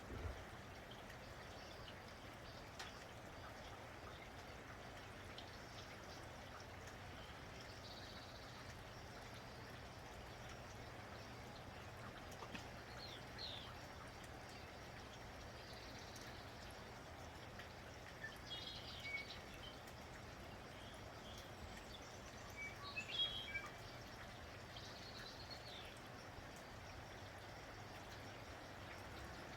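Steady faint rain falling, with birds chirping now and then over it; the loudest is a quick cluster of chirps about three-quarters of the way in.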